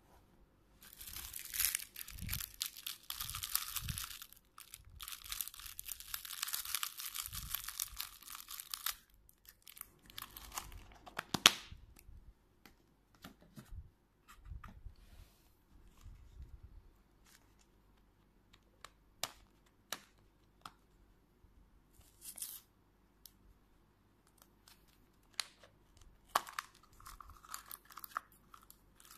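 Thin plastic wrapping crinkling and tearing as it is handled and pulled open, in two long stretches in the first nine seconds and again near the end. In between come scattered sharp clicks and knocks of hard plastic capsule halves, one much louder than the rest a little after eleven seconds.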